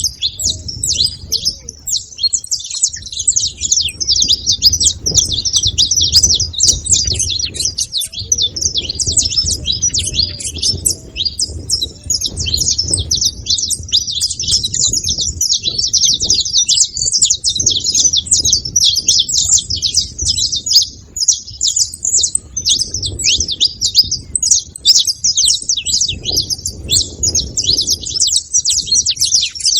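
Saffron finch chirping and singing in a rapid, unbroken stream of high chirps.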